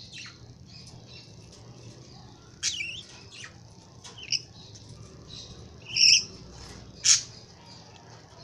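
Young lovebirds giving short, sharp chirps and squeaks, about half a dozen scattered calls, the loudest two about six and seven seconds in.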